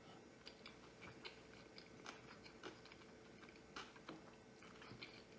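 Faint, close-up chewing of a sushi roll: small wet mouth clicks scattered irregularly, over a faint steady hum.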